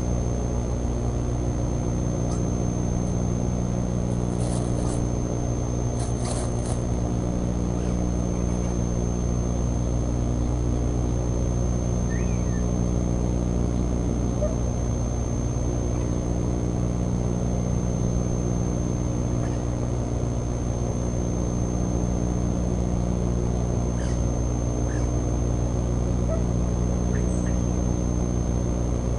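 A steady low hum with a constant high-pitched whine above it, unchanging throughout; a faint short chirp about twelve seconds in.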